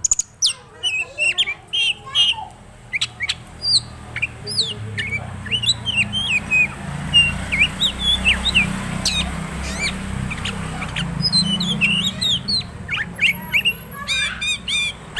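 Oriental magpie-robin of the dirty-breasted 'dokor' form singing a rapid, varied song of short whistles, chirps and trills, mixing in phrases learned from other birds. A low hum runs underneath through the middle.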